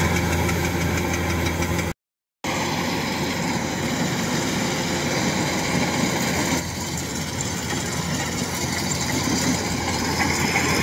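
Kubota DC-105X combine harvester's diesel engine running steadily as the machine cuts rice, with a brief gap in the sound about two seconds in.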